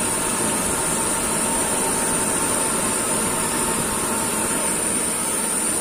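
Hot-and-cold window air conditioner running with its compressor and fan on, making a steady, even running noise with a faint steady tone. The compressor runs normally; the technician puts the no-cooling fault down to a faulty four-way reversing valve.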